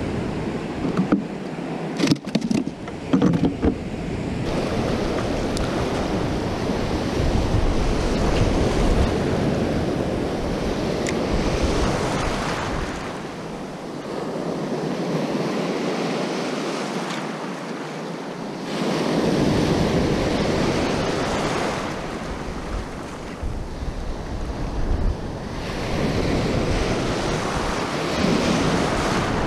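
Small surf waves breaking and washing up the beach, swelling and ebbing every few seconds, with wind buffeting the microphone as a low rumble that comes and goes. A few sharp clicks and knocks sound in the first few seconds.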